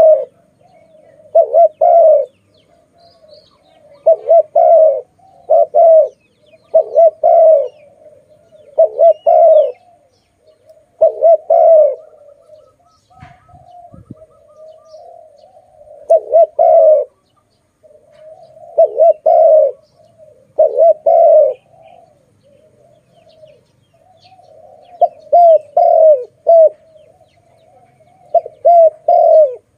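Spotted dove cooing loudly: a low phrase of a few coos repeated every two to three seconds. A soft low thump comes about halfway through.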